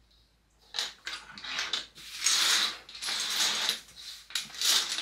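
Loose plastic Lego bricks clattering and clicking as hands rake through the piles and handle pieces. It starts about a second in and is loudest around two and a half seconds in and again near the end.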